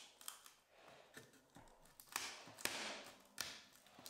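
Faint scattered taps and clicks, with a longer scrape about two seconds in, as a cut piece of OSB board is worked loose from a wall cutout with a screwdriver.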